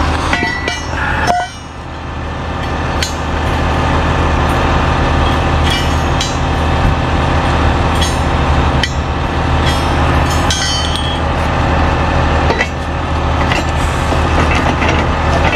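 Truck engine idling steadily, with scattered metal clanks and clinks of steel wheel-lift parts (crossbar, wheel grids, L-arms) being fitted together on a tow truck.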